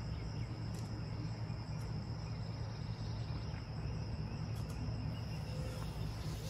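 Insects trilling in one steady high note that cuts off near the end, over a steady low hum.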